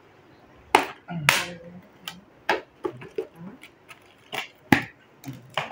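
Thin slats of a wooden produce crate cracking and knocking as its lid is pried open by hand: a string of about ten sharp snaps, irregularly spaced.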